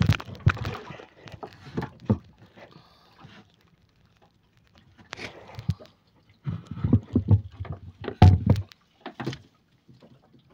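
Fishing net being hauled into a wooden boat: irregular knocks, thumps and rustling as the wet mesh and its floats land on the pile and strike the hull. They come in several clusters, with short pauses about halfway through and near the end.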